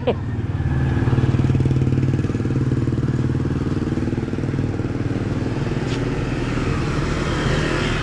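Motorcycle engine running steadily close by, loudest in the first few seconds and gradually easing off as it moves away.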